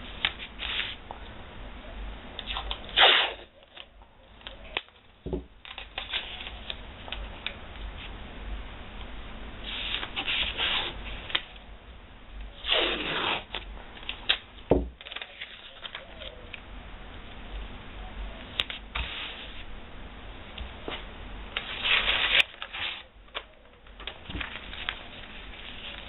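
Blue masking tape being pulled off the roll in several short rips, with paper rustling and hands rubbing the tape down between them.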